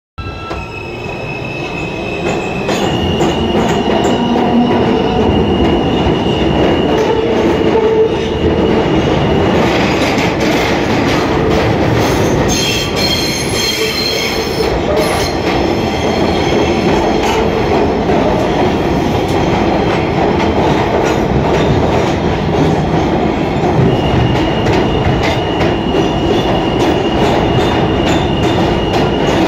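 R160A New York City subway car heard from inside, pulling out of a station. The noise builds over the first few seconds, with a high electric motor whine that steps up in pitch, then settles into steady running noise of wheels on rail. About halfway through, a high-pitched squeal of the wheels rings out for a couple of seconds.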